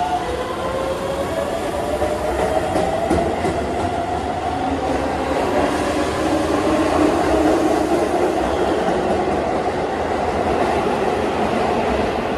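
Keihan 9000-series electric train pulling away from the platform: its motor whine rises in pitch as it accelerates, over a steady rumble and wheels clacking on the rails.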